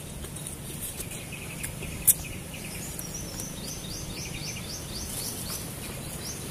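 A bird singing quick trains of high chirps, then a run of short repeated falling notes, over a steady low background hum. A single sharp click comes about two seconds in.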